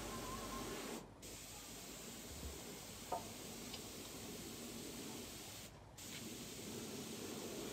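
Gravity-feed paint spray gun giving a faint, steady hiss of compressed air and paint, stopping briefly twice, about a second in and near six seconds.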